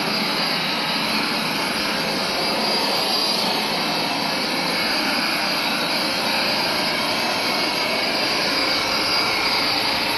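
Hoover SmartWash carpet cleaner running steadily in dry-only mode, its suction motor pulling water back up out of the wet carpet: an even, loud whir with a high hiss of rushing air.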